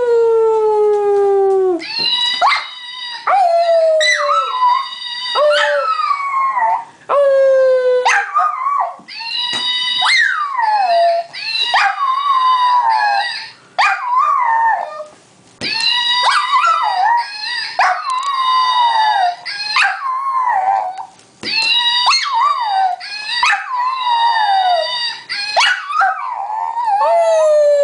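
Small long-haired dog howling: a long series of drawn-out howls, most sliding down in pitch, with short breaks between them.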